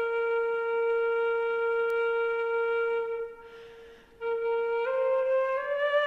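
Background music: a solo flute holding one long note, breaking off briefly about halfway, then moving through a few short notes near the end.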